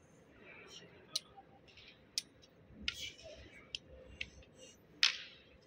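Wooden xiangqi (Chinese chess) pieces clicking as they are handled and moved. There are single sharp clicks every second or so, and the loudest comes about five seconds in.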